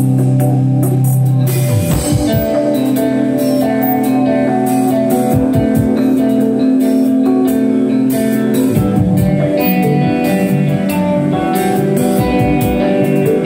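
Electric rock trio playing live: electric guitar and bass guitar chords over busy drumming with frequent cymbal hits, an instrumental passage.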